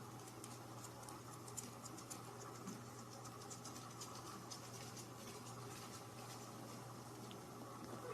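Faint, irregular scratching and clicking, thickest in the first few seconds, over a steady low hum.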